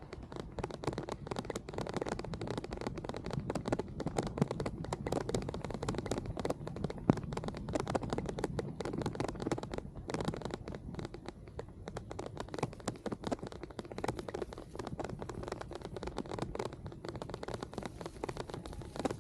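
Dense, steady crackling and scratching noise of a bicycle rolling along a wet path in the rain, with drops and spray hitting the camera.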